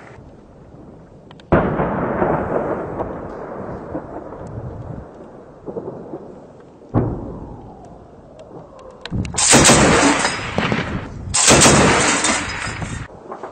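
Two heavy gunfire blasts, each followed by a long rolling echo, then two long bursts of machine-gun fire close by, about two seconds each, that are the loudest part.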